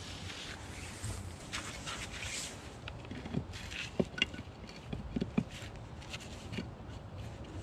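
Flat stone slabs scraping and knocking as a top slab is shifted into place on a dry-laid stone box, with a few sharp knocks about four seconds in and a quick pair just after five, over light rustling.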